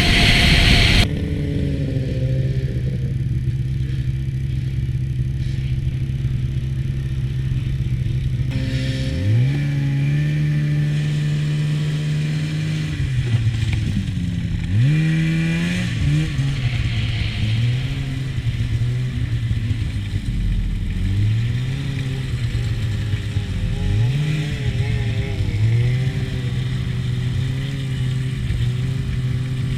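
Snowmobile engine running at a steady pitch, then rising and falling several times from about nine seconds in as the throttle is opened and eased. A louder rush of noise at the start cuts off suddenly about a second in.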